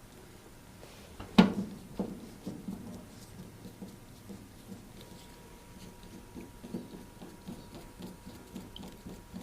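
A sharp knock about a second and a half in, a lighter one just after, then scattered light taps and clicks: hands working on an electric cooker's hob top as it is refitted.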